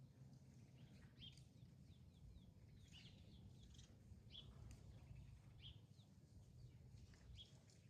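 Faint birds chirping: short, quick chirps that often dip in pitch, scattered throughout, over a low steady rumble.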